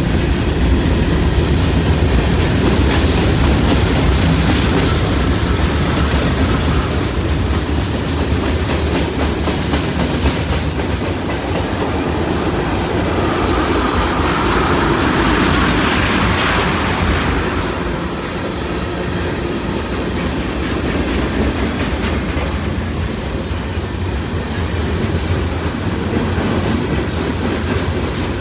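Freight cars of a long CN freight train rolling past at speed, their wheels clattering steadily over the rail, with a louder grinding hiss around the middle.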